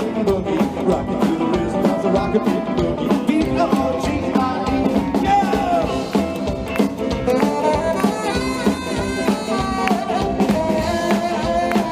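Live rockabilly band playing an instrumental passage: guitar lines over a steady drum beat.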